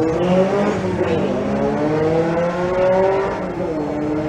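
Two drag-racing VW Beetles, one with a Subaru engine and one turbocharged, accelerating hard down the strip from the launch. Their engine notes climb in pitch through the gears, and gear changes break the climb.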